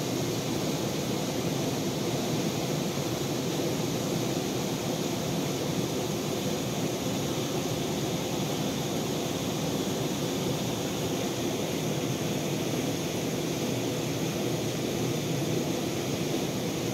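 Steady rushing noise at an even level, with no distinct events.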